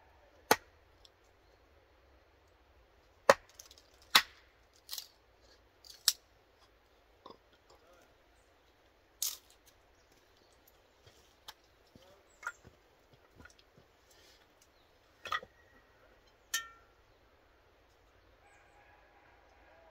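Hatchet striking and splitting small pieces of wood on a chopping block: single sharp knocks and cracks a second or more apart, the loudest in the first few seconds, then sparser knocks.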